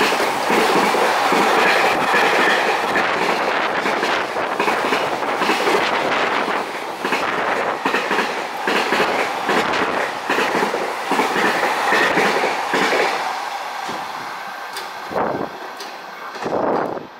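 Container wagons of a freight train passing at speed: steel wheels clattering over the rail joints under a steady rushing noise. The noise eases off as the last wagon goes by, with a final couple of wheel clacks near the end.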